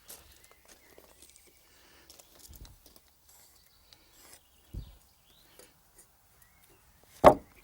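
Small clicks and scrapes of hand tools being handled against oak timber, with a dull thud about five seconds in and a single sharp wooden knock near the end.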